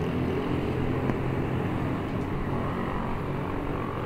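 Engine and road noise of a vehicle driving along a street: a steady low rumble with a faint hum.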